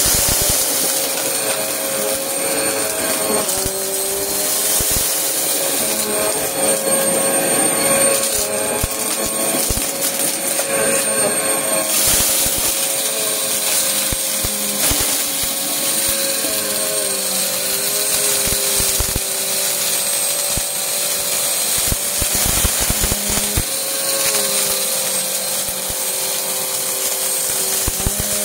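Stick vacuum running steadily with a high motor whine as it sucks up a crunchy mix of confetti and glitter from carpet. The pieces crackle and rattle as they go up into the vacuum.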